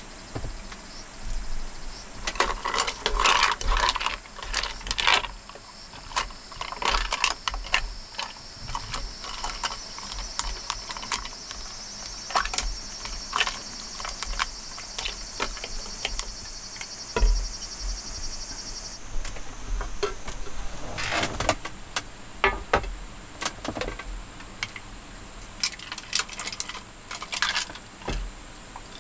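Wooden chopsticks stirring noodles in a stainless steel cup of water, with repeated small clinks and scrapes against the metal, some in quick clusters. A faint high-pitched buzz in the background cuts off suddenly about two-thirds of the way through.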